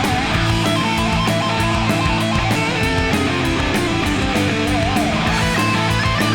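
Heavy metal band playing an instrumental passage, with distorted electric guitars, bass and drums, played back from a vinyl LP. About five seconds in, a lead guitar note wavers with a wide vibrato.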